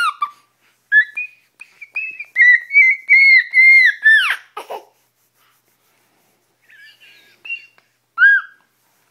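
A baby squealing in a run of high-pitched, gliding squeals, the last of the run sliding down in pitch, then a few quieter coos and one more short squeal near the end.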